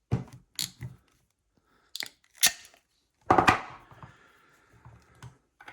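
Sharp metal clicks and clacks of a four-jaw hand crimper working on a wire terminal: several irregular clicks, then a loud clack a little over three seconds in that rings briefly, and a few faint ticks after.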